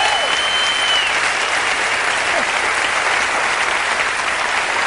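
Theatre audience applauding steadily, with a long high whistle over the clapping during the first second.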